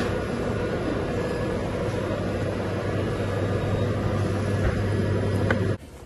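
Steady fan and machinery drone of a shop kitchen with a low hum, cutting off suddenly near the end.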